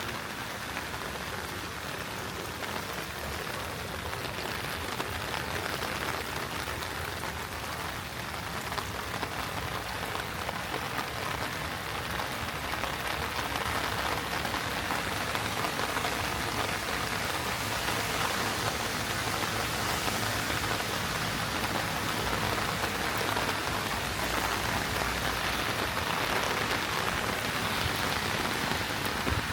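Heavy rain falling and spattering on surfaces in a steady dense hiss, growing a little louder about halfway through.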